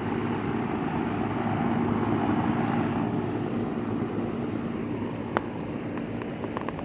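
Outdoor air-conditioner condenser units running in cooling mode: a steady drone of fan and compressor with a low hum. A single sharp click about five seconds in, with a few lighter ticks near the end.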